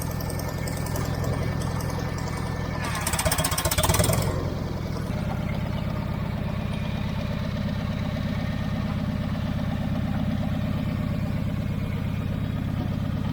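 Engine of the machine lifting the backhoe, running steadily. About three seconds in it rises into a louder, harsh burst for a second or so, then settles back to a steady idle.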